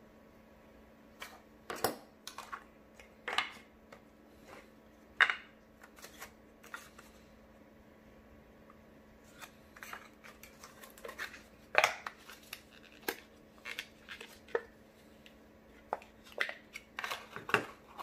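A metal Zippo butane torch insert and its small boxes handled on a table: scattered sharp clicks, taps and light knocks, coming more often in the second half.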